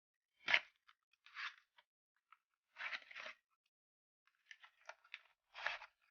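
Packaging being handled: a series of short crinkling, rustling bursts at irregular intervals, the loudest about half a second in.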